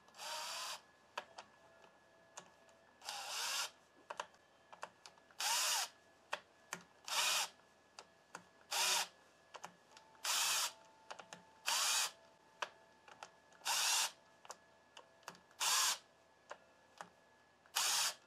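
Cordless power driver spinning out the clutch spring bolts of a Honda VTX1800 in short bursts, about ten in all, roughly one every one and a half to two seconds, with light clicks between. The bolts are being backed off a bit at a time in turn to release the clutch spring tension evenly.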